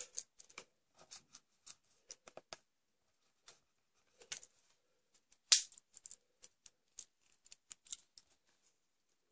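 Faint, irregular small clicks and snips from a Victorinox Classic SD mini pocketknife being worked at a thick nylon cord, with one sharper snap about five and a half seconds in. The tool is not biting cleanly; it needs sharpening.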